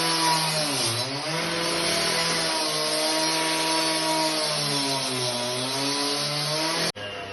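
Small motorised power tool running hard with a cutting hiss; its pitch dips sharply twice as it takes the load, then recovers.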